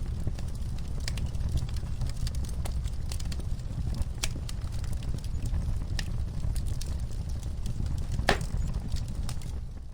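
Wood fire in a fireplace crackling: irregular sharp pops and snaps over a steady low rumble, with one louder pop about eight seconds in.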